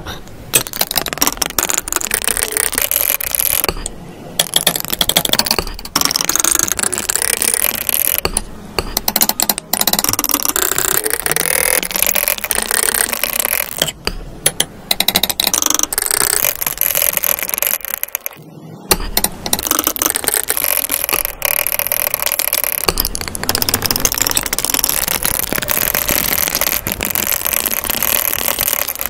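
Metal palette knife scraping and stirring thick acrylic paint against a plastic palette well, a dense wet scraping broken by short pauses every few seconds as each new colour mix begins.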